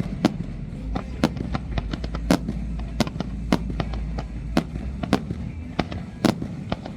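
Fireworks display: a dozen or so sharp bangs of shells bursting, at irregular intervals of roughly half a second to a second, over a low rumble.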